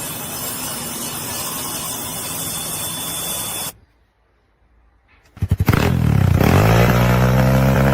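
A steady hissing machine-like noise cuts off abruptly; after a second and a half of near silence an engine starts, with a few quick firing pulses, then runs with a pitch that rises and then holds steady.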